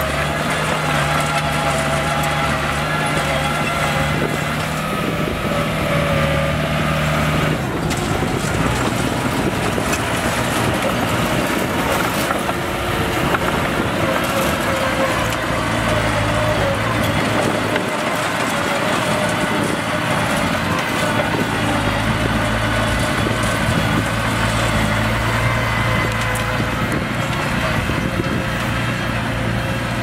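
Heavy diesel engine of an earthmoving machine running steadily under load, its pitch shifting about 7 seconds in and again around 16 and 21 seconds in.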